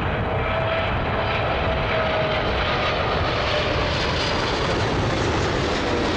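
Airliner's engines on its landing approach: a steady rushing noise with a faint whine that sags slowly in pitch, over a heavy gusty rumble of strong wind.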